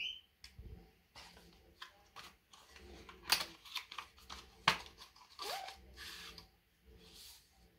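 Paper envelope rustling and crinkling as it is handled, with two sharper crackles about three and four and a half seconds in.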